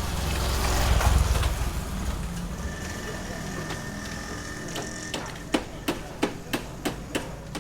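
A low rumble that swells about a second in and fades, then a quick, even run of sharp clicks or knocks, about three a second, starting past the middle.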